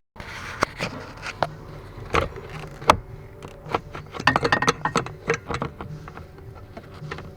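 Hand work on plastic trim and wiring under a pickup's dashboard: scattered clicks, knocks and rattles, with a quick run of clicks about four to five seconds in.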